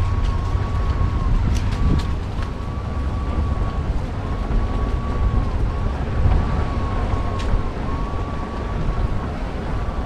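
Wind buffeting the microphone of a moving electric bike, with a steady high whine from the Rad Mini 2's hub motor under pedal assist that keeps cutting out and back in. A few sharp ticks sound near the start and about seven seconds in.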